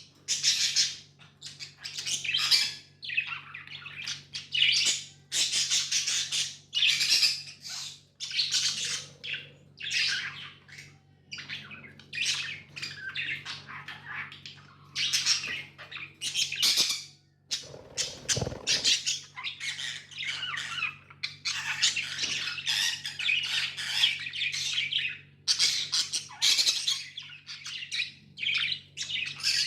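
Budgies chirping and chattering almost without pause, with frequent squawks, over a faint steady hum. A dull thump about 18 seconds in.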